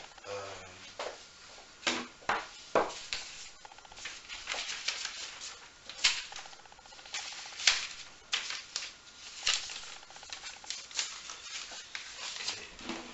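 Irregular clicks, taps and rustles of gear being handled, with plastic boxes and items knocked about on a table.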